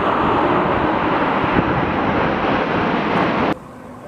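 Loud, steady jet roar of a formation of F/A-18 Super Hornets flying past. It cuts off abruptly about three and a half seconds in, leaving only a faint hiss.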